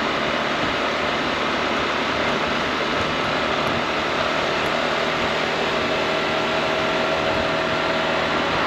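Honda ADV 350 scooter's single-cylinder engine running at a steady cruise, mixed with wind and road noise while riding.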